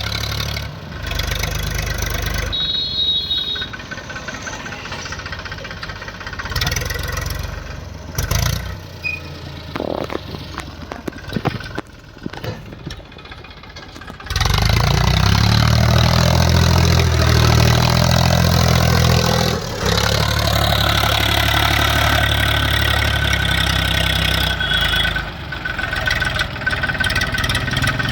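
Tractor diesel engines running and revving in a string of abruptly cut clips; from about halfway one engine runs loud and steady, with two short breaks.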